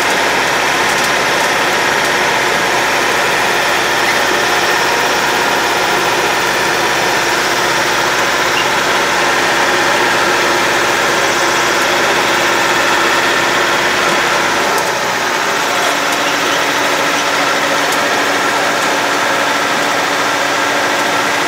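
Tourist road train's engine running steadily as the train drives along. About 15 seconds in, the low rumble drops away and the hum shifts slightly in pitch.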